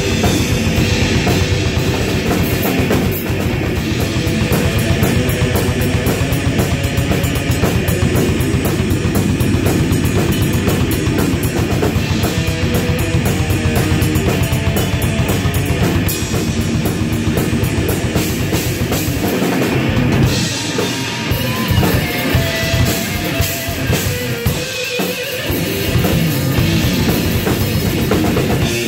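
Improvised heavy metal played live on electric guitar and drum kit: guitar over dense, busy drumming. About twenty seconds in the drums and low end thin out for a few seconds, leaving a few held guitar notes, then the full band comes back in.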